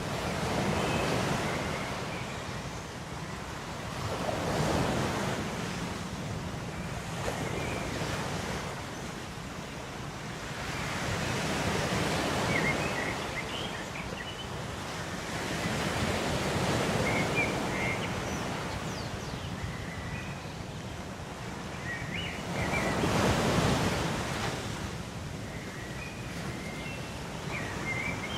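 Ocean waves washing in, the surf swelling and easing off every few seconds, with faint short high chirps here and there.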